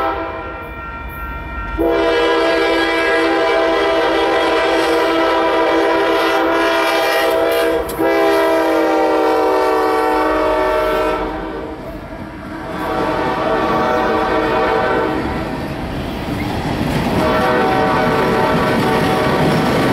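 Kansas City Southern diesel locomotives sounding a multi-note air horn for a grade crossing: a short blast at the start, then a long blast of about ten seconds, broken briefly near the middle, as they pass. Fainter horn blasts follow while tank cars roll by, their wheels rumbling and clacking on the rails.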